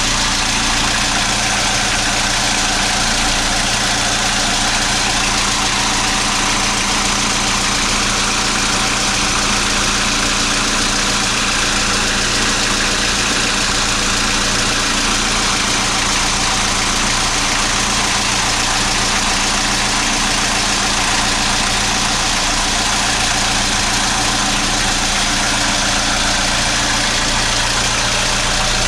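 Boat engine running steadily at an even speed, with a steady hiss over it.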